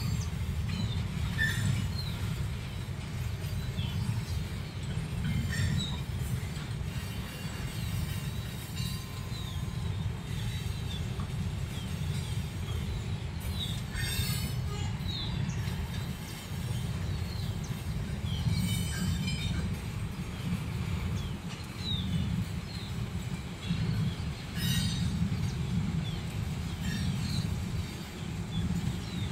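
Slow-moving freight train of hopper cars hauled by an EMD GP38 diesel locomotive: a steady low rumble of the two-stroke diesel and rolling wheels. Short high chirps come now and then, and a few brief sharp clanks.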